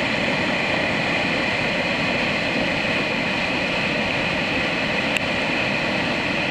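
River in high flow rushing through white-water rapids: a steady, loud rush of water that does not change, with one brief click about five seconds in.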